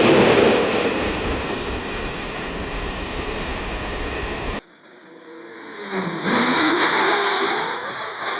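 Car sound effects: a loud rushing vehicle noise that eases slightly and cuts off abruptly about halfway through, followed by a car engine revving, its pitch dipping and then climbing.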